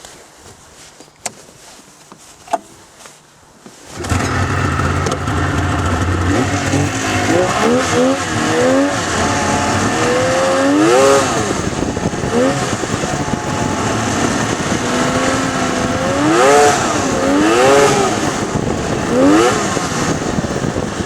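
After a few seconds of low sound with a few clicks, a snowmobile engine comes in loudly and runs under throttle. Its pitch rises and falls repeatedly as it is revved up and eased off.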